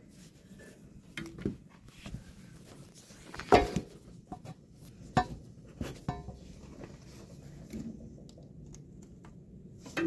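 Scattered clicks, taps and knocks of hands working an extension-cord plug and a tractor's block-heater cord against the machine's metal, the loudest knock about three and a half seconds in.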